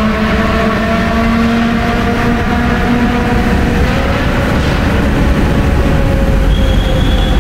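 Car engine pulling hard at high revs under acceleration, heard from inside the cabin, its note rising slowly and then holding, over heavy road and wind noise echoing in a tunnel.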